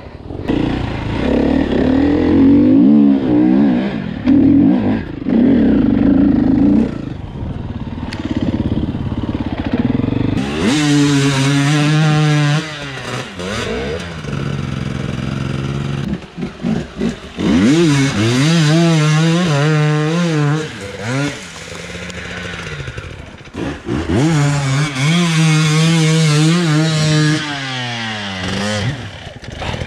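Enduro dirt-bike engines revving hard under load on a steep, muddy climb. The pitch rises and falls in repeated bursts as the throttle is worked, with a duller, steadier engine sound in the first part.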